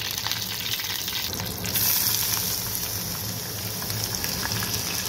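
Hot oil sizzling in a small steel pot with mustard seeds crackling. About two seconds in, the sizzle grows louder and brighter as shredded potato goes into the oil, then settles into a steady frying hiss.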